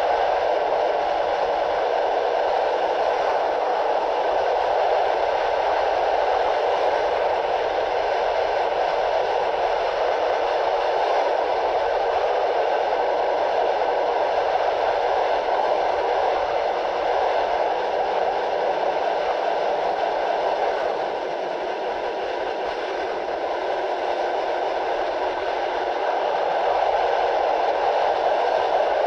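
Steady rushing noise of a passenger train coach running at speed, heard at an open window, with the wind noise heavily cut down by processing so it sounds dull and even. It dips slightly for a few seconds about two-thirds of the way through.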